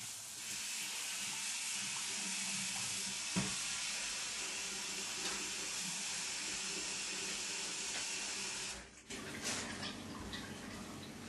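A steady hiss of running water lasts about nine seconds and stops abruptly. A few faint clicks follow.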